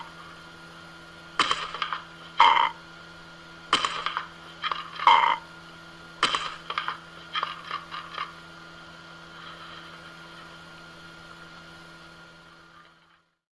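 Parrot squawking in a series of loud, harsh calls, five strong ones in the first six seconds and then shorter ones, falling silent about eight seconds in. A steady low hum runs underneath and fades out near the end.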